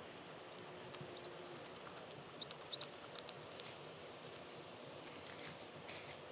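Scattered small clicks and light taps of carburetor parts being handled during reassembly, over a faint steady background hiss.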